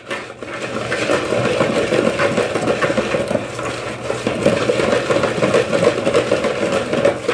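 Wire hand whisk beating thick chocolate cake batter in a bowl, a rapid, steady run of strokes clicking and scraping against the bowl, as the last of the flour is mixed in.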